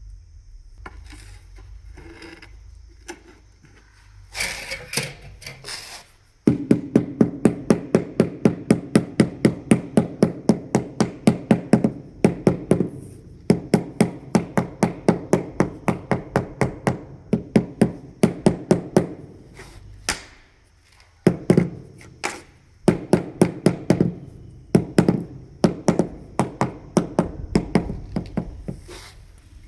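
Mallet tapping a floor tile down into its mortar bed to set it level: a long run of quick, even blows, about three a second, with a short break partway through.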